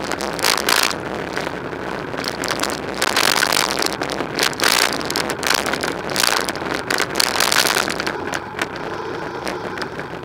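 Wind buffeting the microphone of a camera on a moving bicycle: a loud rushing noise that swells and drops in irregular gusts, strongest a few seconds in and again past the middle.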